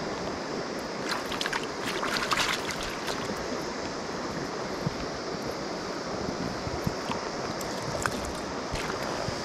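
River water running steadily, the river high after rain. About one to two and a half seconds in, a short spell of close rustling and clicks.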